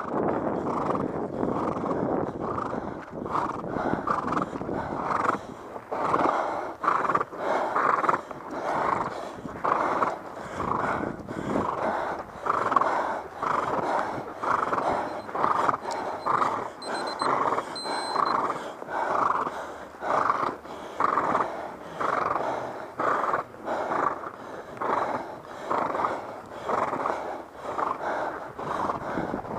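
Horse breathing hard after galloping a cross-country course: loud, rhythmic blowing breaths about once a second while it walks.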